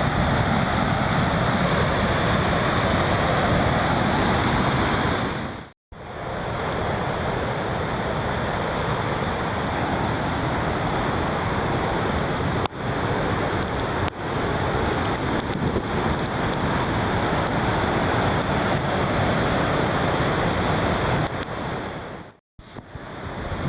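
The steady rushing roar of Victoria Falls' falling water. It breaks off abruptly about six seconds in and again near the end, where the footage cuts.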